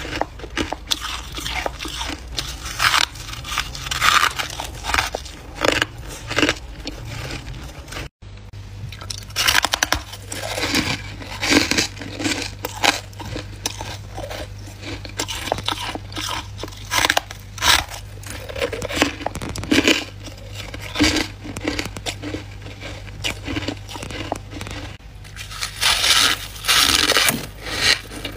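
Freezer frost being bitten and chewed close to the microphone: loud, irregular crunches one after another, with a momentary break about eight seconds in.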